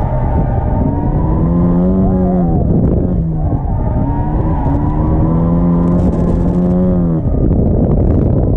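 Turbocharged Mazda Miata engine heard from inside the open car, revving hard with its pitch rising and falling several times as the throttle is worked; about seven seconds in the engine note drops away as the throttle comes off.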